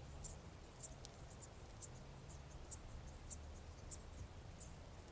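Bumblebee buzzing: a faint, low hum that swells and eases. Short high ticks come about twice a second.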